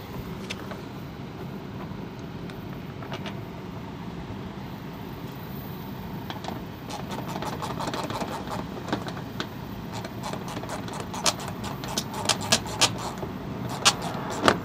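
Steady outdoor background noise. From about halfway through, a run of sharp clicks and taps grows thicker and louder toward the end: hand-tool work on a fastener at the front bumper's edge by the wheel well.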